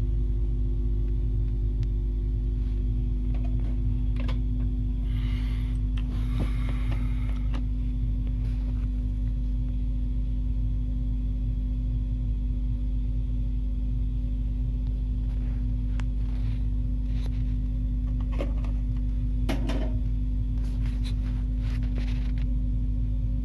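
Steady low electrical hum, with a few light clicks and a brief rustle about five to seven seconds in.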